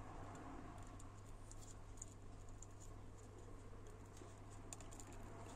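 Faint rustling and small scattered ticks of fingers working a piece of heat-shrink tubing onto a shielded cable with its braid pulled back, over a low steady hum.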